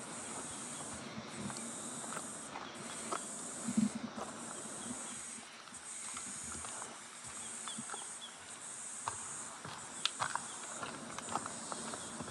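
A high, shrill insect chorus pulsing about once a second, with scattered footsteps on the forest trail.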